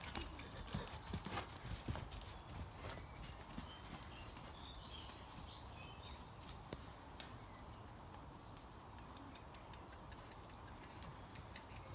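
A horse's hoofbeats as it canters on a sand arena, loudest in the first couple of seconds as it passes close by, then fainter as it moves away.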